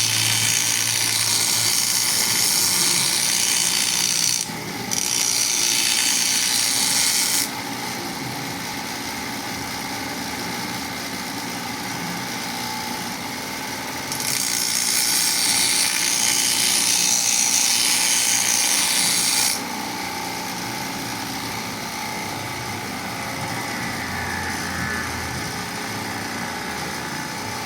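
Power grinder sharpening a planer blade: a loud hissing grind while the blade is held to the wheel, three passes of roughly four, two and a half and five seconds. Between the passes the motor runs on steadily with no contact.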